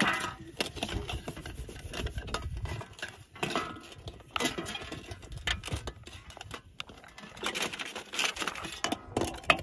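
Dishes being washed by hand: a sponge scrubbing a stainless steel tray and cups being washed in a basin of soapy water, with irregular scrapes, splashes and light clinks.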